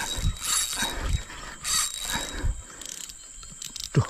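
Spinning reel, a Shimano Sienna 4000, under load from a freshly hooked big fish, its drag ratcheting in short irregular bursts as the fish takes line, with soft low thumps of handling.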